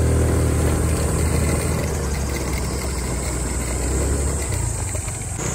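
SYM Woo 115 scooter engine running as the scooter rides slowly up a rough lane. It is steady at first and grows rougher and less even from about a second in.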